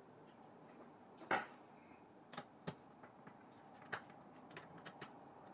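A handful of light clicks and taps, the loudest about a second in: crimped wire connectors being fitted and a screwdriver working the screw terminals of a small metal-cased power supply.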